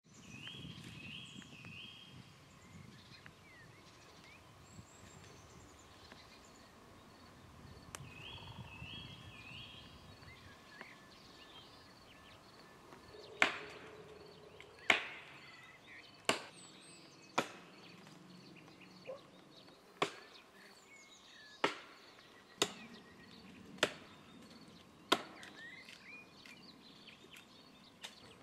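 Faint outdoor ambience with a few small high chirps, then, from about halfway in, an axe chopping into a tree trunk: sharp single strikes about every second and a bit, a dozen or so in a row.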